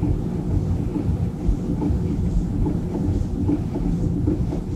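A steady low rumble with no clear pitch.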